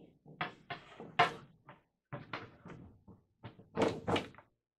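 Evans G2 coated 16-inch drumhead being handled on a floor tom shell: a series of short plastic scrapes and light knocks as the head is lifted and set back onto the shell's edge, loudest about a second in and near the end.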